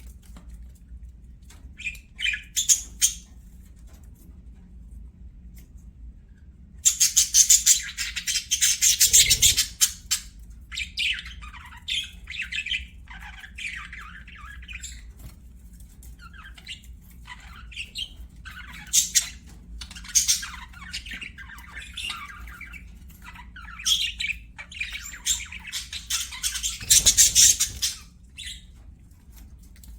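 Budgerigars chattering and warbling in fast, scratchy bursts broken by short pauses; the loudest runs of chatter come about seven seconds in and again near the end.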